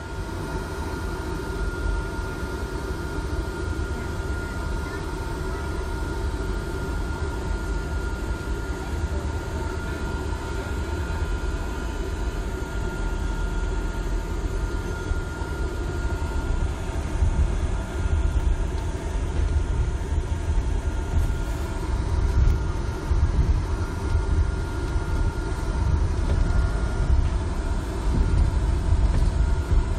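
Steady low engine and road rumble heard from inside a moving bus, with a faint steady whine above it. It grows somewhat louder and rougher about halfway through.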